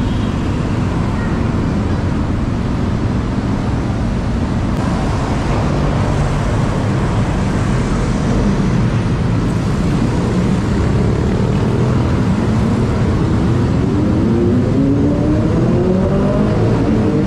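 Steady, loud city traffic of motorcycles, scooters and cars. In the last several seconds a vehicle engine accelerates, its pitch rising.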